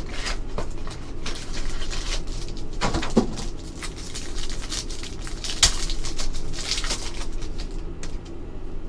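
A foil trading-card pack wrapper crinkling and tearing as it is opened by hand, with irregular crackles and a sharp snap about halfway through.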